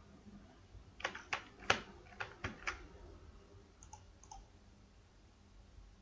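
Computer keyboard keystrokes and mouse clicks, a quick run of about seven sharp clicks in under two seconds, then a couple of faint ticks.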